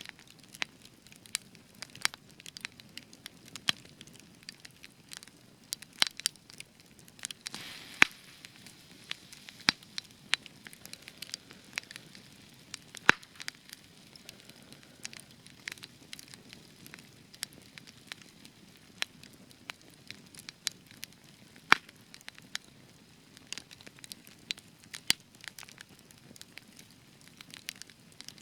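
Spruce-wood campfire crackling: irregular sharp pops over a soft hiss, the spruce wood giving extra crackle. A few pops stand out louder, and the hiss swells briefly about eight seconds in.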